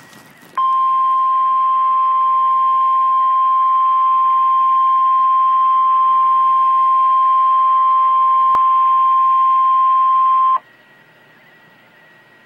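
NOAA Weather Radio warning alarm tone: one loud, steady single-pitched beep near 1050 Hz, held for about ten seconds and cutting off abruptly, signalling that a severe thunderstorm warning is about to be broadcast.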